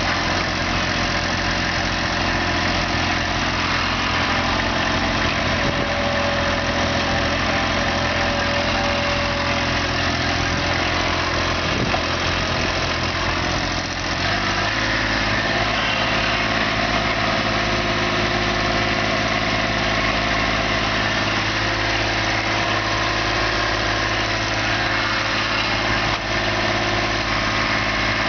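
Small excavator's engine running steadily; its note changes about halfway through as the engine speed shifts.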